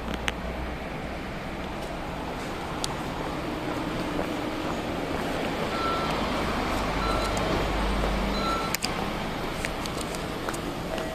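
City street traffic with a large vehicle's engine running close by, louder from about six seconds in, and three short high beeps a little over a second apart from a vehicle's warning signal.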